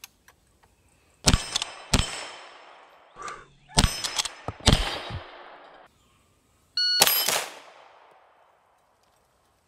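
Lever-action rifle fire from a short-stroke 1873 Winchester in 32-20 (32 WCF), a string of sharp shots in quick succession with steel targets clanging and ringing after the hits; a pause, then one last shot and ring about seven seconds in.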